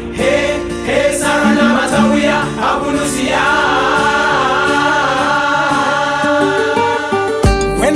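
A choir singing a song in sustained harmony with accompaniment; near the end, a drum beat and bass come in.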